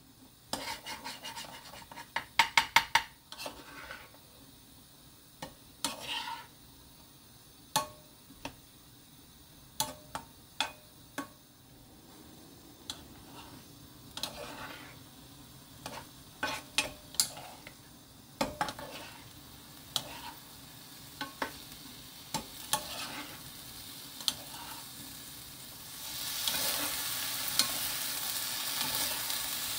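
Wooden spoons stirring and tossing julienned Korean squash in an oiled nonstick wok, with scattered knocks of the spoons against the pan. Near the end a steady frying sizzle comes up and grows louder.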